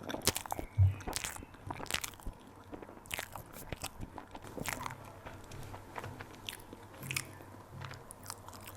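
Close-miked chewing and biting of a cream puff, with irregular mouth clicks and soft crunches of the pastry shell.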